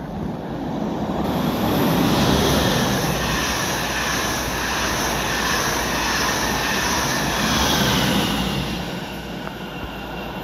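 Passenger train of blue-and-yellow Dutch intercity coaches passing close by on the track beside the platform. Its rumble and rail noise build over the first two seconds, hold, and fade near the end.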